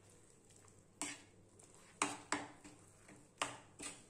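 A metal spatula knocking and scraping on a flat iron tawa while stirring and mashing a wet vegetable mixture. There are five sharp knocks at uneven intervals, the first about a second in.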